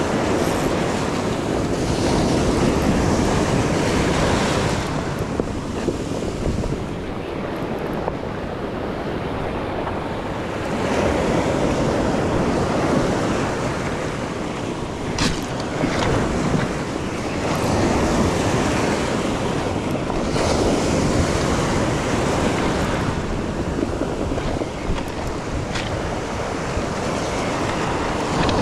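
Surf breaking and washing up a pebble beach in repeated surges every several seconds, with wind buffeting the microphone. A few brief sharp clicks stand out now and then.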